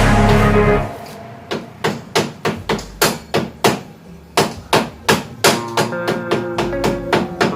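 Hammer blows struck over and over at an uneven pace, about two to three a second with a brief pause midway. Background music cuts out about a second in, and a few guitar-like notes return near the end.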